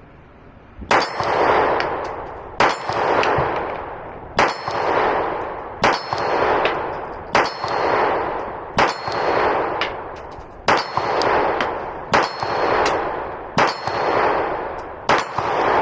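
Glock 26 Gen 5 9mm subcompact pistol fired slow and aimed, ten shots about a second and a half apart, each followed by a long echo.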